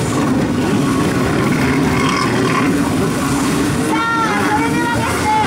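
Two-stroke freestyle personal watercraft engine running hard, its note wavering up and down as the craft spins in tight circles, with water spray and other watercraft engines behind it. A voice comes in about four seconds in.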